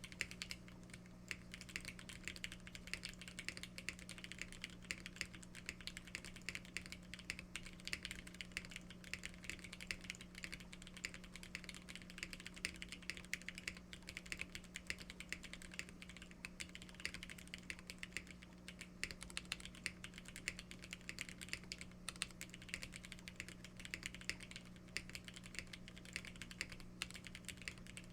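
Continuous fast typing on a Geonworks F2-84 TKL custom mechanical keyboard: a dense, uneven stream of key clacks from lubed Ultraglide black switches on an aluminium plate, O-ring gasket mounted. A faint steady low hum runs underneath.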